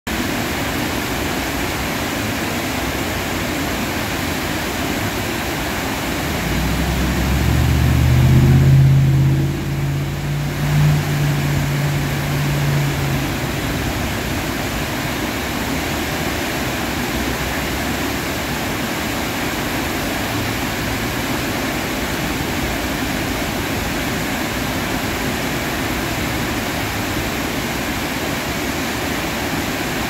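Water rushing steadily over the gates of a river dam spillway. About six seconds in, a low engine hum rises over it, is loudest around eight to nine seconds in, and fades out by about thirteen seconds, like a vehicle going past.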